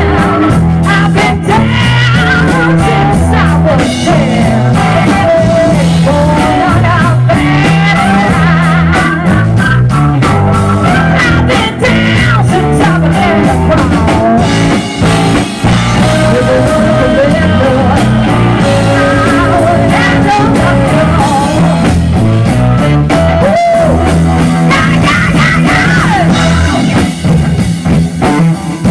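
Live electric guitar, electric bass and drums playing a loud rock-blues groove. A lead line with wavering vibrato and bent notes runs over a repeating bass riff and busy drumming.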